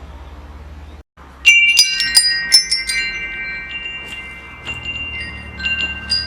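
Metal wind chimes: after a low steady rumble and a brief dropout about a second in, a cluster of tubes strike together and ring on with lingering tones. A few scattered strikes follow near the end.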